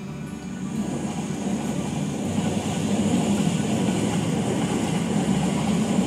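Keisei electric train running past, its rumble and rail hiss building over the first three seconds, then holding steady.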